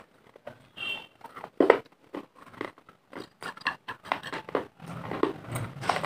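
Dry clay pieces being chewed and crunched right at the microphone: a quick, irregular run of sharp crackles as the clay is bitten and ground between the teeth.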